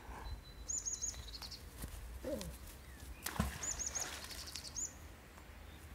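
A small songbird sings short, high-pitched phrases of three quick notes, repeated a few times, over a steady low wind rumble on the microphone. One sharp knock comes about three and a half seconds in.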